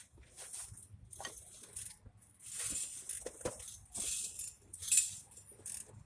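Metal hand tools clinking and rattling in a few short, irregular jangling bursts, with scattered sharp clicks, as they are handled at an open engine.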